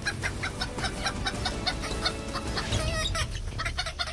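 A flock of broiler chickens clucking, with many short calls overlapping one another, over a low steady hum.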